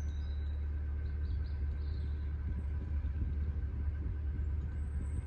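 A narrowboat's diesel engine running steadily while the boat cruises, giving an even low hum.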